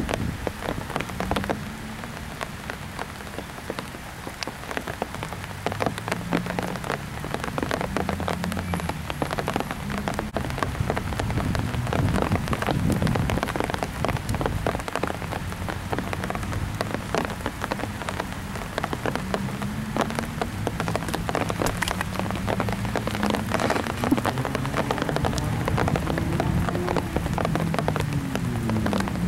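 Summer storm rain falling steadily, with many drops pattering on surfaces, and a low tone that shifts in pitch running underneath.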